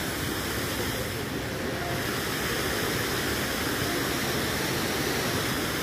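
Large park fountain's water jets splashing into the basin, a steady rush of water.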